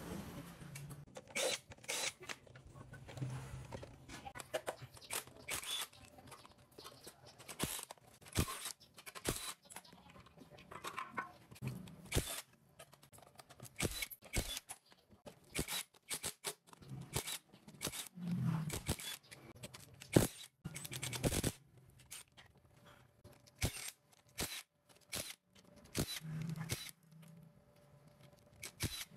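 Intermittent sharp metallic clicks and clinks of tools taking apart a scooter engine: a ratchet wrench turning, then a cordless driver briefly spinning out bolts from the magneto stator.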